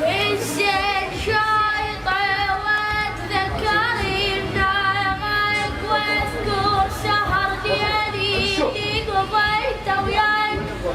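A high voice singing long held notes with fast, heavy vibrato, over a steady low accompaniment.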